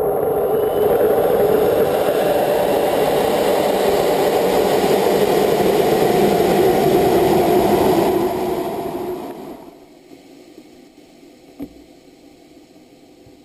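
Rocket motor burning, heard from a camera riding on the rocket: a loud, steady rushing noise that fades out between about eight and ten seconds in, leaving a faint hiss as the rocket coasts.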